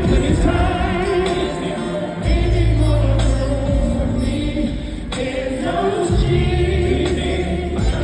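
Live R&B concert music played loud through the PA: a band with long, deep bass notes that change every few seconds, and voices singing over them like a choir.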